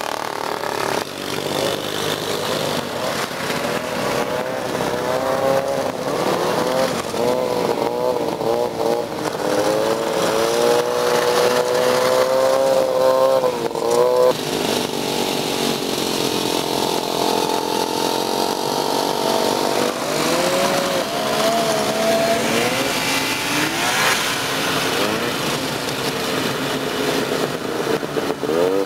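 Vintage two-stroke snowmobile engines running and revving as sleds ride past one after another, the engine pitch rising and falling.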